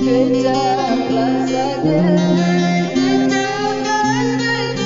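Gitar tunggal music from South Sumatra: an acoustic guitar picks a steady pattern of bass notes and chords while a woman sings a wavering, ornamented melody over it. The voice comes in right at the start.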